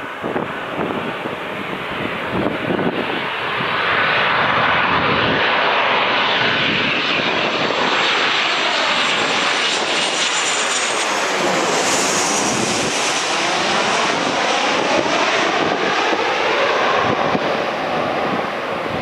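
Boeing 737-800's two CFM56-7B turbofan engines heard as the jet passes low overhead on final approach with its landing gear down. The roar swells about four seconds in and stays loud, and a high fan whine drops in pitch as the jet goes over.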